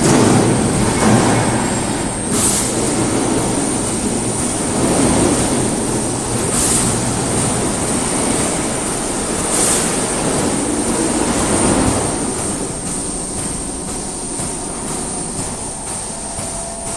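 CNC polishing machine running, its polishing wheels working against a workpiece: a dense mechanical grinding noise over a thin steady high whine, swelling and easing every few seconds.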